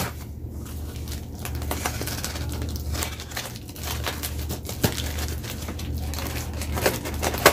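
Parcel packaging crinkling and rustling as it is handled and opened, in dense, irregular crackles.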